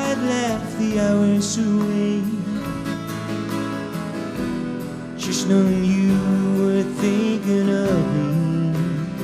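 Live soft-rock band playing a slow ballad, here a stretch without lead vocals, with strummed acoustic guitar and sustained, wavering held notes over it.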